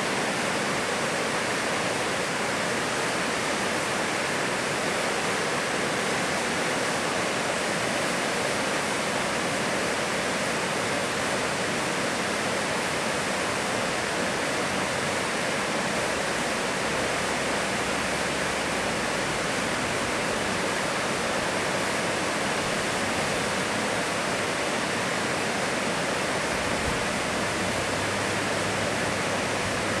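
Waterfall sliding down a broad, sloping rock slab into a pool: a steady, even rushing of water with no change in level.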